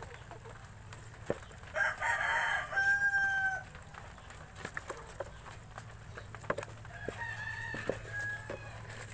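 A rooster crowing twice: a loud crow about two seconds in and a fainter one about seven seconds in. Under it are scattered light clicks and rustles of hands sorting shrimp out of debris in a plastic basin.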